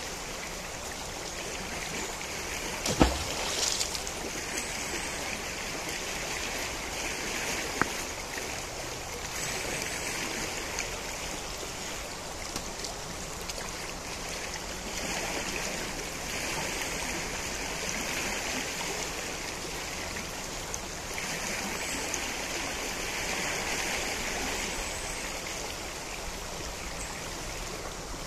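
The Najerilla river flowing: a steady rush of water that swells and eases every few seconds. There is a sharp knock about three seconds in and a fainter tick a few seconds later.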